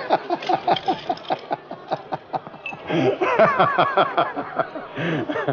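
A man laughing hard: a long run of quick, evenly repeated "ha" sounds, with another stretch of laughing voice about three seconds in.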